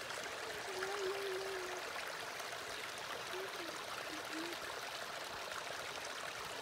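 Small rocky stream running and trickling steadily over stones. A few faint wavering hums come through about a second in and again near the middle.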